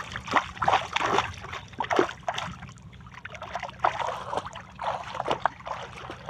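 Water splashing and sloshing in irregular short bursts, with a faint steady low hum underneath.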